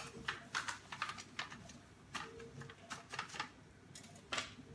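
Hands handling food and kitchen things at a wooden cutting board: irregular light clicks, taps and rustles, a few a second.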